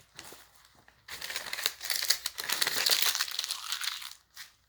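Packaging and paper being handled, crinkling and rustling in a dense run of small crackles from about a second in until near the end.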